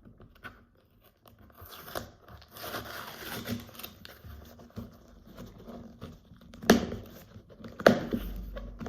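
A subscription box being opened by hand: tearing and crinkling of tape, cardboard and packing material, with two sharp, louder rips or knocks near the end.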